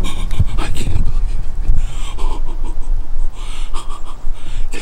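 A person breathing hard and fast close to the microphone, several loud breaths, over a steady low rumble on the mic.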